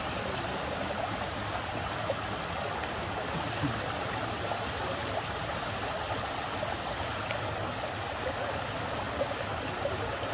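Water running steadily down a stepped garden cascade.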